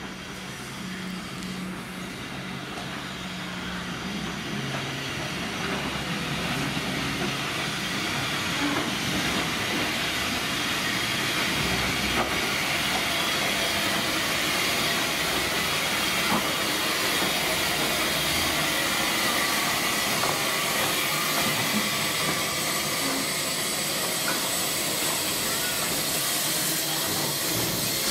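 Steam locomotive C22, a 1902 Beyer Peacock 2-6-0 tender engine, pulling slowly into the platform. A steady hiss of steam grows louder as the engine draws up alongside.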